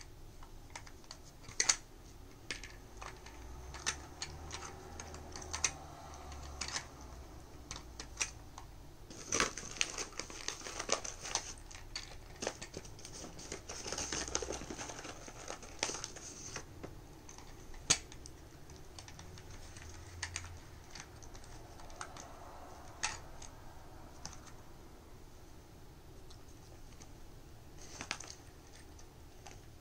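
Plastic dog puzzle feeder clicking and clacking as a dog noses and paws at its sliding lids: scattered irregular taps with a few louder knocks.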